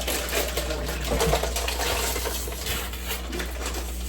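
Milk glugging as it is poured from a jug into a cup, over a steady low hum.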